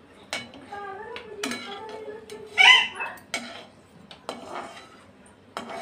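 A metal spoon clinks and scrapes against a kadhai as a tempering of whole red chillies and spices is stirred in hot oil, with several sharp clicks. Over it a high-pitched, wavering voice-like call rises and falls, loudest about two and a half seconds in.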